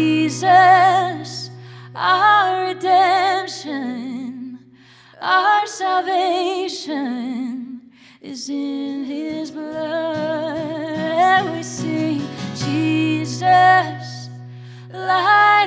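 A woman singing a slow worship song in long held phrases with vibrato, separated by short pauses, over a low sustained note.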